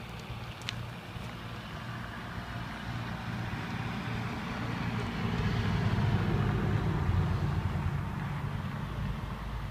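Road traffic rumble with a motor vehicle passing: it swells to its loudest about six seconds in, then fades.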